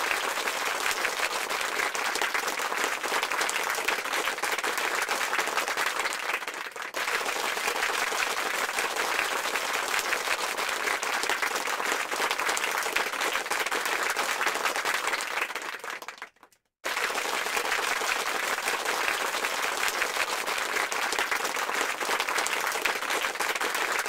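Dense, steady applause, the sound of many hands clapping at once. It dips briefly about seven seconds in, fades out about sixteen seconds in, and comes straight back.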